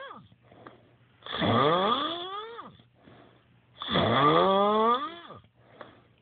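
Loud snoring: two long snores about two and a half seconds apart, each rising steadily in pitch and then dropping off sharply at its end.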